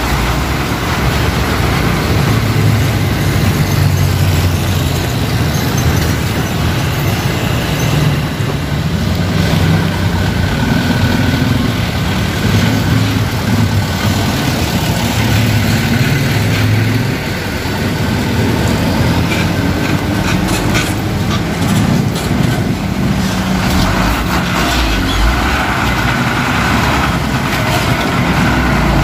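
Diesel engines of heavy tandem-axle dump trucks running at low speed as they pass close by and manoeuvre into a gravel lot, the rumble rising and falling with the throttle.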